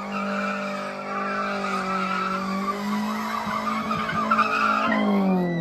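A sedan's engine held at high revs at a steady pitch while its front tires spin and squeal on the pavement in a burnout. The revs drop near the end.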